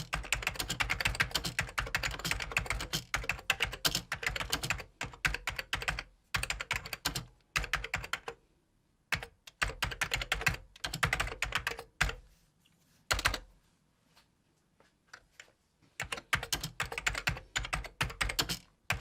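Typing on a computer keyboard: rapid runs of key clicks, dense at first, then in shorter bursts broken by pauses.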